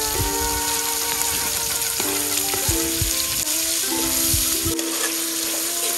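Tomatoes and sautéed aromatics sizzling steadily in hot oil in a metal pot. A metal ladle stirs them, scraping and knocking against the pot now and then.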